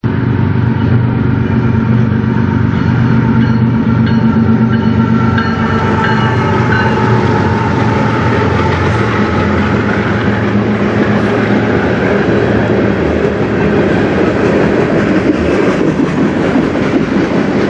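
CN freight train passing close by. The two lead diesel locomotives' engines run loudly as they approach and go past over the first several seconds, then the freight cars roll steadily by with continuous wheel-on-rail rumble and clatter.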